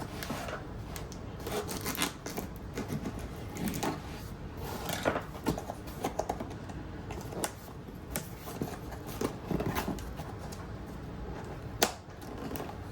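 Packaging of a stylus pen being opened by hand: irregular clicks, crackles and rustles of cardboard and plastic, with one sharper click near the end.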